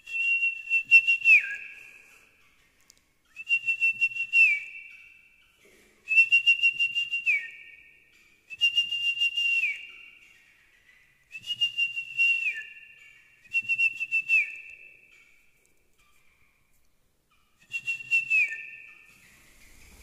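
Whistled call repeated seven times, about every two and a half seconds. Each call is a level, fluttering whistle that drops in pitch at its end, used to call a young sooty-headed bulbul to fly onto the hand.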